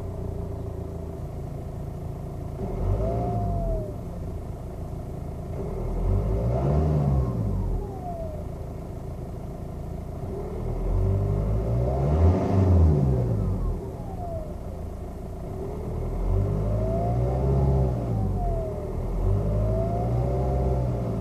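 Seat Leon Mk2 2.0 TDI diesel engine revved several times, heard from inside the car. A siren-like whine from the turbocharger rises and falls in pitch with each rev, the sign of failing turbo bearings.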